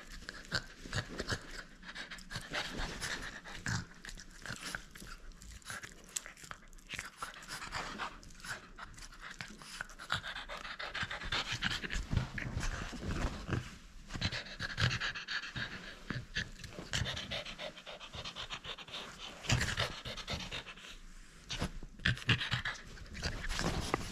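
French bulldog panting hard in quick, irregular breaths while tugging on and mouthing a rubber ring toy.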